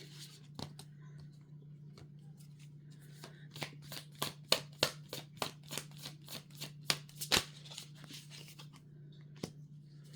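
Tarot cards being shuffled by hand: a run of quick card snaps and slaps, densest in the middle, over a steady low hum.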